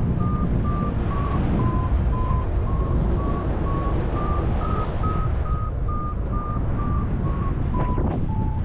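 Paragliding variometer beeping, about two to three short beeps a second, its pitch sagging, rising a little about halfway through and falling again; rising, quickening vario beeps signal that the glider is climbing in lift. Under it, steady wind rush on the action camera's microphone in flight.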